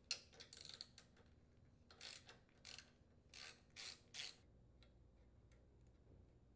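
Faint ratcheting clicks of a 3/8-inch socket wrench backing out the valve cover bolts on a Briggs & Stratton OHV small engine. There are scattered clicks in the first second, then five short rasps over the next two and a half seconds.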